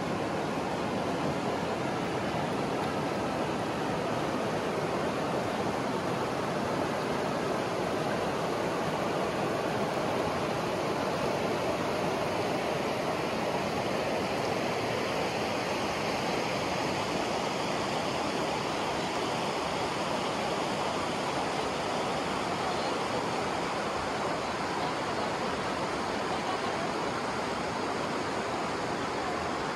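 Steady rush of a mountain river running over rocks in shallow rapids.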